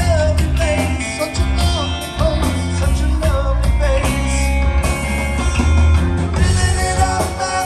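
A live rock band plays amplified electric guitars and drums, with a heavy bass line under it.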